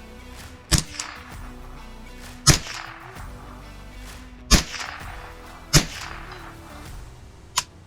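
Four gunshots at uneven intervals, each with a short ringing tail, and a fainter sharp click near the end. Background music plays under them.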